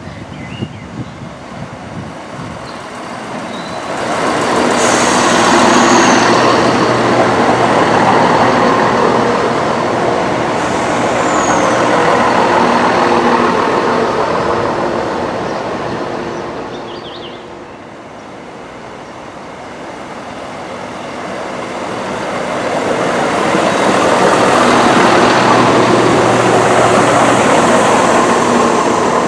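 Class 170 Turbostar diesel multiple unit running past on the rails, its underfloor diesel engines and wheels making a steady drone. The drone rises about four seconds in and fades to a low point about eighteen seconds in, then builds again toward the end.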